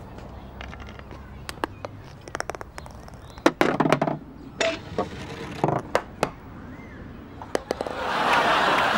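A scatter of light clicks and a few louder knocks from a golf ball and putter on a crazy golf course. Near the end a studio audience reaction of laughter and applause swells up.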